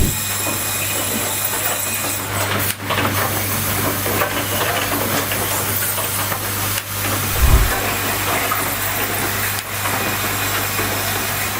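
Automated cable-holder terminal assembly machine running: a steady hiss with a constant low hum, a few sharp clacks and one dull thump about seven and a half seconds in.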